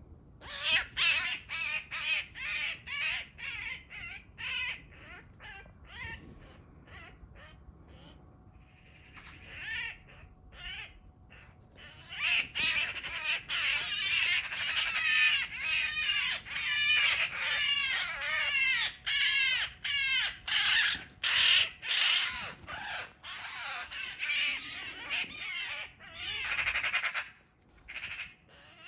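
Eurasian magpie giving harsh, rasping distress calls, about two a second, while pinned down by a Eurasian sparrowhawk. The calls ease off for a few seconds about a third of the way in, then resume in a long unbroken run.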